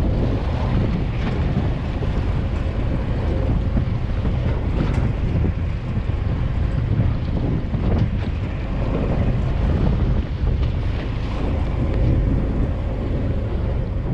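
Wind buffeting the microphone over the steady running noise of a fishing boat under way at sea.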